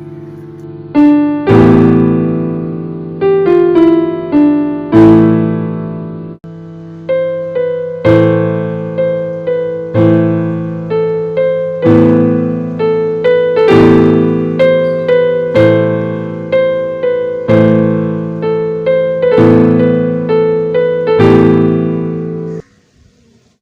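Solo piano music: slow, sad chords and a simple melody, each note struck and left to ring, cutting off abruptly near the end.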